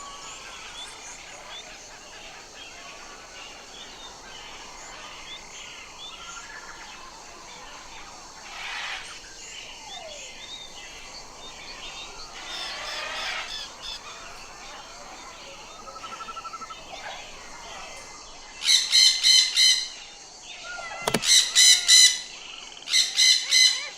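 Parrot giving harsh, loud squawks in three bouts over the last six seconds, over a steady background of many smaller birds chirping.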